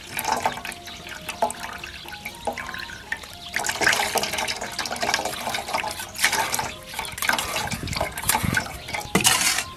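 Cow-stomach liquid (niubie juice) pouring and trickling through a fine-mesh strainer into a container, with uneven splashes.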